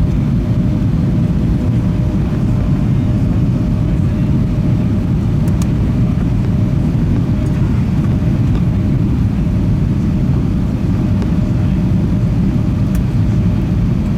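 Airbus A320 cabin noise: a steady low rumble of engines and airflow, with a faint steady tone above it.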